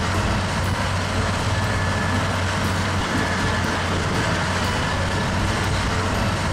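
Sugarcane harvester and the tractor pulling its haul-out wagon running steadily at work: a constant diesel engine drone with a low hum underneath.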